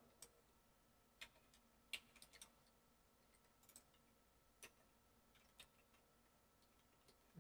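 Near silence broken by scattered faint clicks of a computer mouse and keyboard, several seconds apart at times, a few closer together about two seconds in.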